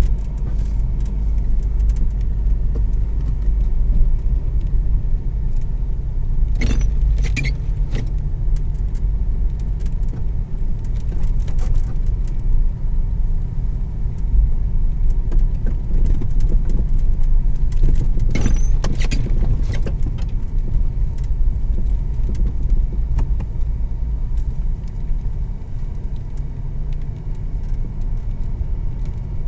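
Steady low rumble of a car's engine and tyres heard from inside the cabin, driving over snow-covered road. Brief metallic jingling twice, about seven and eighteen seconds in.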